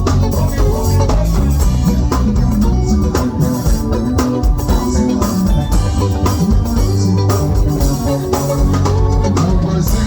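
Band music in an 80s pop style, without vocals: sustained keyboard-like chords over a strong bass line and a steady drum beat.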